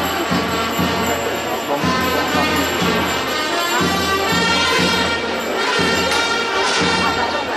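Band music: loud, sustained wind instruments over a regular drumbeat.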